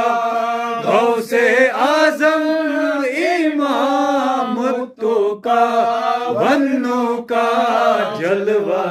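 Men singing an unaccompanied Urdu devotional salam (durood) in long, drawn-out melodic phrases. There are short pauses for breath about five and seven seconds in.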